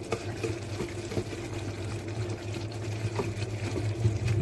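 Potatoes and fenugreek cooking in a clay pot, with a bubbling, watery sizzle and a few soft knocks of a wooden spoon against the pot, over a steady low hum.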